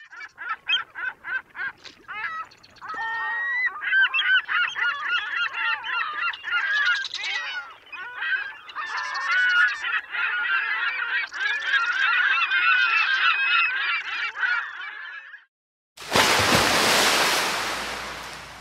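A flock of geese honking: a few separate honks at first, then many calls overlapping, stopping suddenly at about fifteen seconds. About a second later a loud rushing noise starts and fades away.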